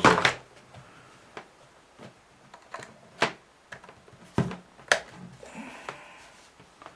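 Small plastic clicks and knocks as a USB power meter is handled and pushed into a power strip's USB socket: several separate sharp clicks, the loudest about three seconds in.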